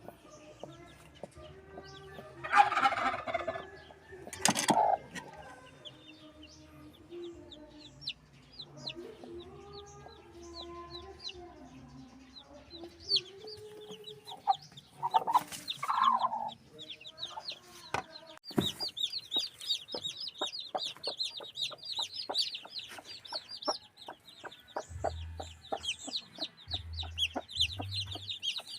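Newly hatched chicks peeping in quick, high chirps, dense and continuous from a little past halfway, among adult chickens clucking. Two louder chicken calls stand out, about 3 and 15 seconds in.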